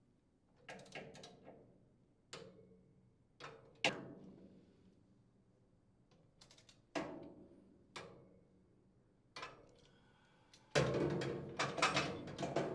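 Steel hand tools, a socket on a torque wrench and an open-end wrench, knocking and clicking against the chipper blade's bolts and the impeller housing: separate sharp metallic knocks with a brief ring, then a denser run of knocks and rattles near the end.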